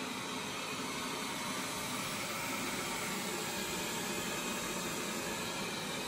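Wyze robot vacuum running across a wood floor: a steady, even whooshing hiss from its suction fan and brushes.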